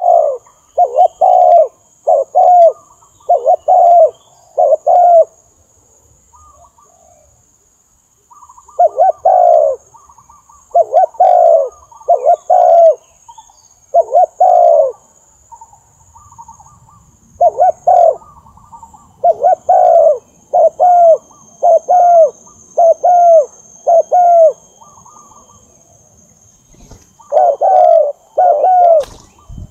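Spotted dove cooing: runs of three to six loud coos, about one a second, separated by pauses of a few seconds.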